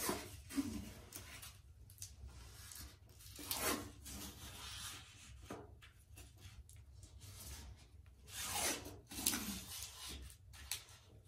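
Blue painter's tape being pulled off the roll and rubbed down flat along the base of a tiled wall: faint, scratchy rubbing swishes, the clearest about three and a half and nine seconds in.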